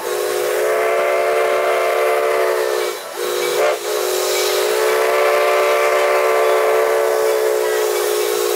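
Coal-fired steam locomotive's whistle blowing a chord of several close tones in two long blasts, broken briefly about three seconds in, with a hiss of steam underneath.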